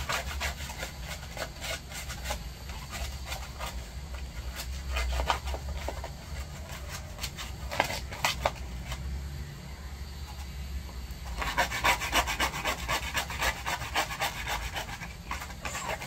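A Maltese dog's claws being filed by hand with a nail file: a rapid run of rasping strokes, which come denser and louder about eleven seconds in.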